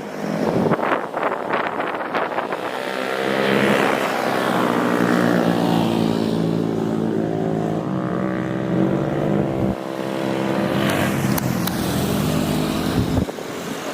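Jet airliner passing close by, its engines giving a loud steady drone made of several tones whose pitch shifts slowly as it goes past, fading near the end. Gusty wind buffets the microphone in the first couple of seconds.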